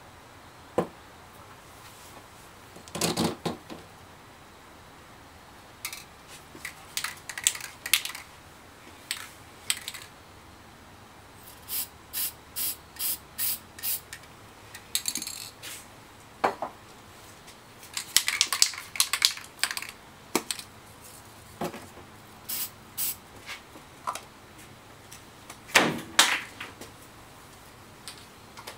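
Aerosol spray-paint can let off in many short hissing puffs, with clicks and knocks of the can and a mask being handled. Near the middle the puffs come evenly, about two a second.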